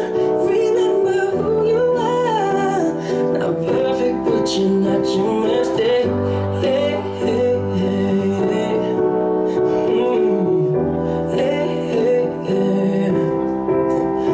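Music: a song with a singing voice over keyboard chords.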